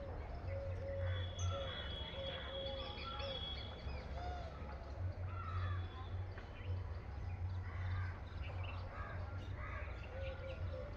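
Several birds calling around a pond: a run of short repeated low notes and many higher chirps, with a brief high steady whistle near the start. A low steady rumble runs underneath.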